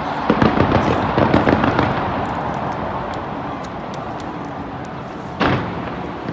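Fireworks going off: a rapid cluster of bangs and crackling pops in the first two seconds, then a steady background din and one single sharper bang about five and a half seconds in.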